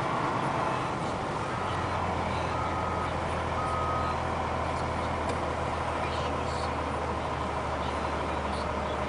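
Cat 950M wheel loader's diesel engine running steadily as the machine drives with its bucket raised. About one and a half seconds in come three short electronic alarm beeps, about a second apart.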